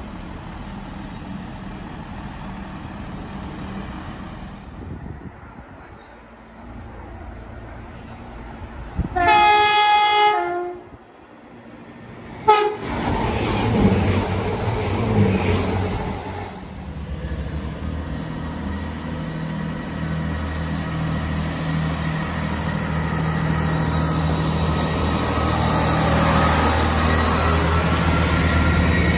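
Chiltern Railways diesel multiple unit sounds its horn once, a loud held note about a second and a half long about nine seconds in, then gives a brief second toot. Its underfloor diesel engines then run as it goes by, growing louder toward the end.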